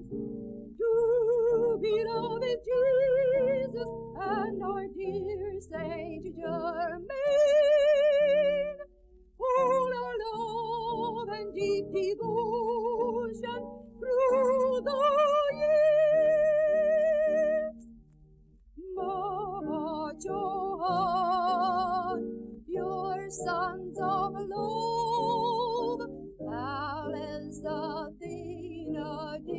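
A woman sings a devotional hymn in a high voice with strong vibrato over a steady sustained accompaniment. Brief pauses fall between phrases, about a third and two thirds of the way through.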